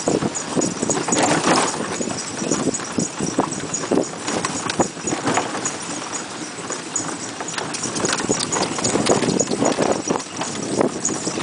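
Hooves of a pony pulling a small horse-drawn cart, clip-clopping along the road at a steady pace.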